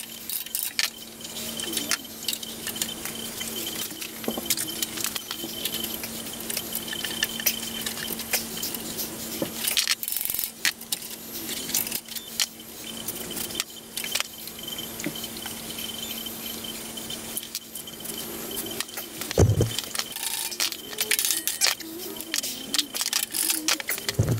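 Hand tools working on a metal bandsaw's drive wheel and gearbox: scattered metallic clinks and taps of a hammer, punch and pliers on steel, with one heavy knock about 19 seconds in.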